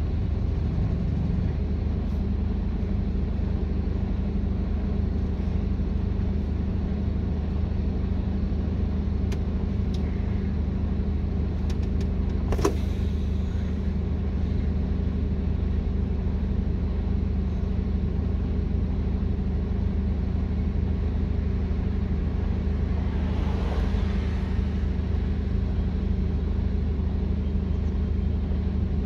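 Steady low drone of a truck's engine and road noise, with a sharp click about halfway through and a short hiss near the end.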